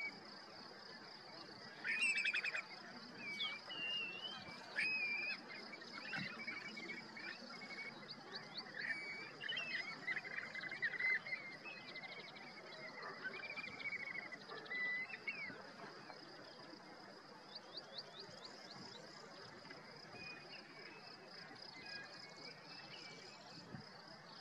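Mixed flock of shorebirds calling: many short overlapping chirps and whistled calls, busiest in the first half and thinning out after about 16 seconds, over a steady high-pitched trill.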